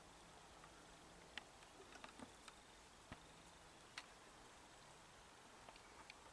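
Near silence: a faint steady hiss with a few soft, irregular clicks scattered through it.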